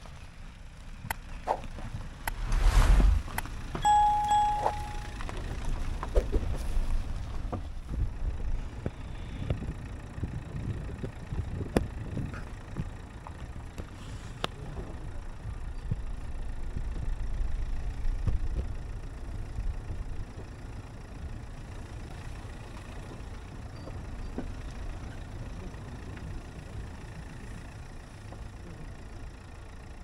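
Low rumble of a car driving slowly over a rough, bumpy dirt track, with scattered knocks and clicks and a brief loud rush of noise about three seconds in. A short bell-like ding sounds about four seconds in.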